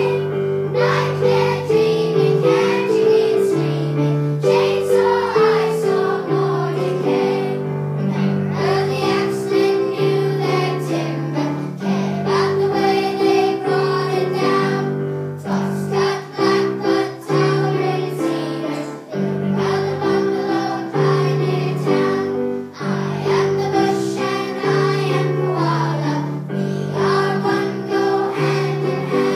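A group of children singing a song together with instrumental accompaniment.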